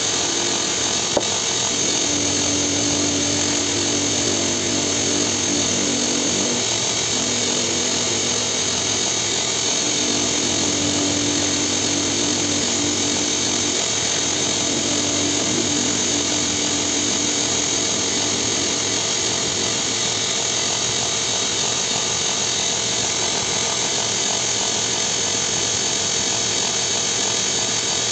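A power tool running steadily with a continuous hiss, a low hum coming and going in its first two-thirds.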